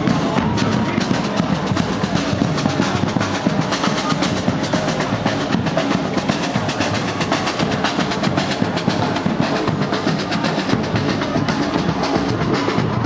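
Street drum band playing large metal-shelled drums with sticks: a loud, dense, fast drumming rhythm that carries on without a break.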